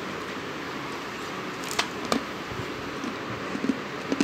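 Crunching as someone bites into a piece of half-roasted edible clay: two sharp crunches about two seconds in, then a quick run of softer chewing crunches near the end.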